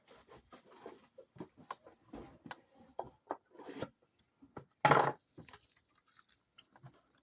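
Hands handling trading-card packaging: a run of small irregular taps, rubs and rustles, with one louder thump about five seconds in, then a few light ticks.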